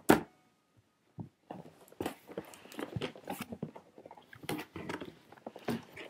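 Packaging being handled and unpacked: irregular crinkling and crackling, with a sharp knock at the very start.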